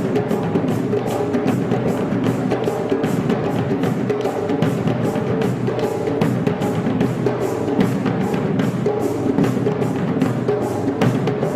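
Afro-Brazilian percussion music: drums keep a steady, even beat of about three or four strokes a second over a continuous pitched layer.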